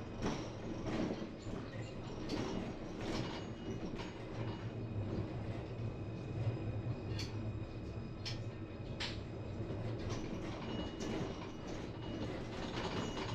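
Tram running along the track: a steady low running hum, with sharp clicks and knocks from the wheels over the rail, and faint high-pitched tones above.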